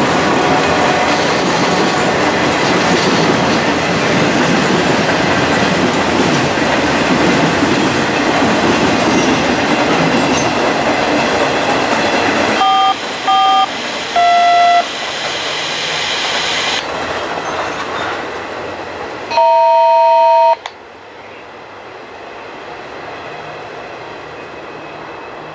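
Freight train cars rolling past with loud, steady wheel-and-rail noise, which drops off sharply about halfway through and then fades as the last cars go by. In the second half a horn sounds: two short blasts and a slightly longer one, then a blast of about a second.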